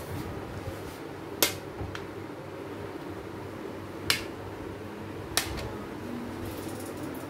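A metal spoon clicking sharply against a serving tray while spreading whipped cream on a cake: three clicks, about a second and a half in, near four seconds and again a second later, over a steady low hum.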